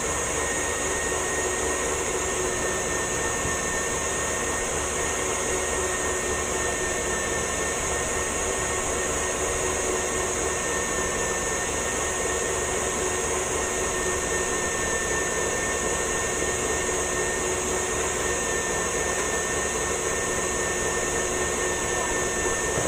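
KitchenAid Artisan stand mixer running at a constant speed: an even motor whine and hum with a hiss over it, without a break.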